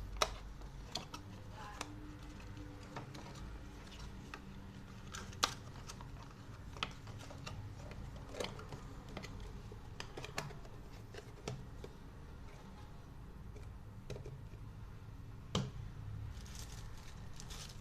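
Scattered light clicks and taps from small plastic camera accessories and packaging being handled, a couple of them sharper than the rest.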